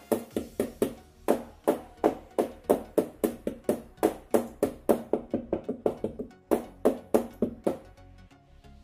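A plate full of dhokla batter being rapped against the counter, a rapid run of sharp knocks about five a second that stops near the end. The tapping drives the air bubbles out of the batter so the steamed dhokla comes out spongy.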